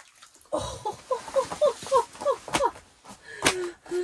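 Water splashing as a fish is pulled up out of a hole in the ice, with a quick run of short, falling cries over it at about three a second, then a few sharp slaps or knocks.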